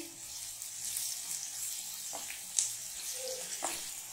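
Chopped onions and ginger-garlic paste sizzling in hot oil in a kadai, stirred with a wooden spatula that clicks against the pan a few times.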